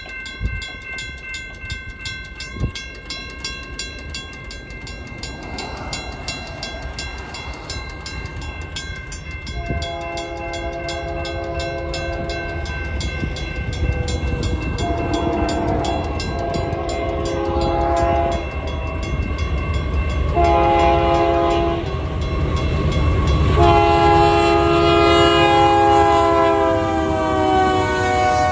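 Grade-crossing warning bells ringing rapidly and continuously: a General Signals Type 2 electronic bell and a WCH mechanical bell. From about ten seconds in, an approaching Union Pacific freight locomotive sounds its multi-chime air horn in a series of long blasts for the crossing. The last blast is held as the locomotive reaches the crossing and drops in pitch as it passes, over the rising rumble of the train.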